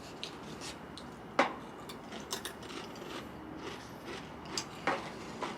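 Wavy Pringles potato crisps being crunched and chewed, with a few sharp crunches standing out among fainter ones.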